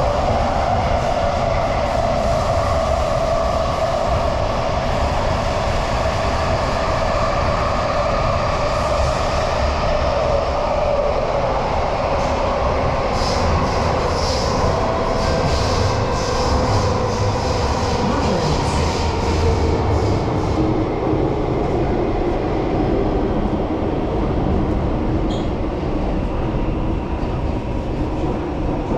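Electric metro train (Singapore MRT, Thomson–East Coast Line) running in a tunnel, heard from inside the car: a steady rumble of wheels on rail under a motor whine that slowly falls in pitch as the train slows into the station. Brief high squeaks come in midway.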